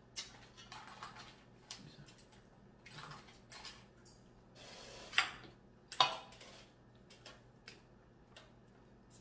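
Scattered clicks, cracks and clatter of a crab-in-coconut-milk meal being eaten by hand: crab shells breaking and knocking against a plate. The two sharpest cracks come about five and six seconds in.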